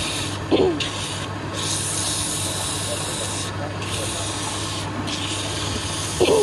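A belt-driven woodworking machine running, with a steady rasping hiss of wood being worked that breaks off briefly several times. A short squeal comes about half a second in and again near the end.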